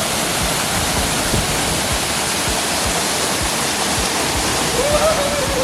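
Waterfall's water rushing in a steady, dense roar of noise. About five seconds in, a single held tone begins over it.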